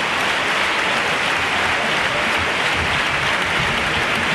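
Theatre audience applauding steadily.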